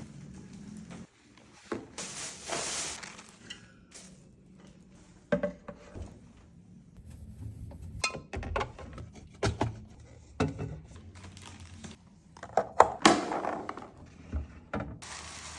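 Household objects and containers being handled in a kitchen: a series of irregular knocks, thunks and clatter as things are picked up and set down, with two short stretches of hissing or rustling noise.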